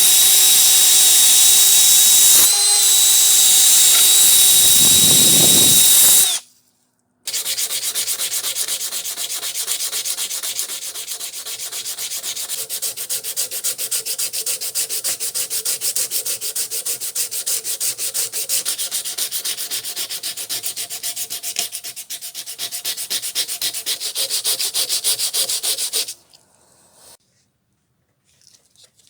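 A power tool runs steadily with a high, constant whine and stops about six seconds in. After a short pause comes a long stretch of rapid, rasping sanding strokes, which stop a few seconds before the end.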